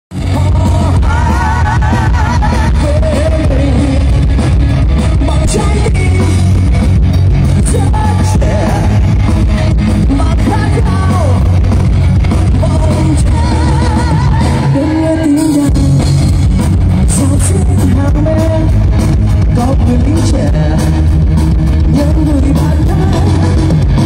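Live rock band playing loud, amplified through a concert PA and heard from within the crowd: heavy bass and drums under electric guitar, with a singer's voice carrying wavering held notes.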